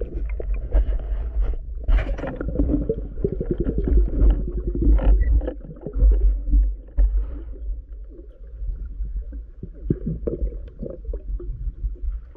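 Underwater sound picked up by a diver's camera: a low, steady rumble of moving water, with a fast run of clicks a couple of seconds in and scattered knocks later.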